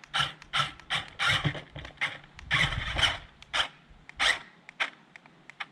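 JJRC Q137 8x8 skid-steer RC vehicle driven in short bursts, its small electric motors and gearboxes whirring while the tyres scrabble and scrape. The bursts come about two a second and thin out to a few faint clicks after about four seconds.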